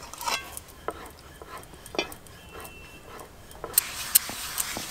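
Scattered light knocks and clicks of hands handling cookware and dough, with a short rustling hiss and a few sharp clicks near the end.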